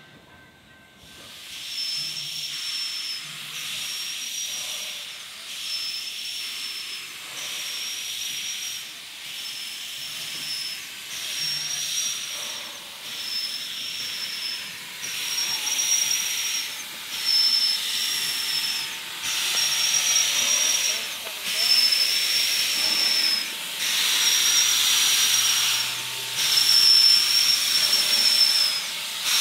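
Narrow-gauge steam locomotive hissing steam in long rhythmic pulses, with a high whistling edge. Each pulse breaks off about every second and a half, and the pulses grow steadily louder.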